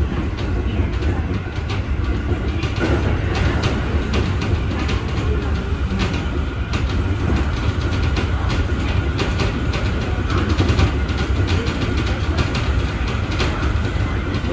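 Keio 7000 series electric train running at speed: a steady low rumble, with the wheels clicking over rail joints again and again and a faint steady whine.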